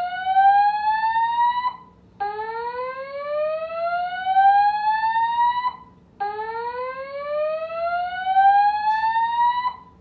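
Edwards fire alarm system sounding its slow-whoop evacuation tone through the building's alarm speakers. It is a loud rising sweep of about three and a half seconds that cuts off sharply, then repeats after a half-second pause: one sweep ends about two seconds in, and two full sweeps follow.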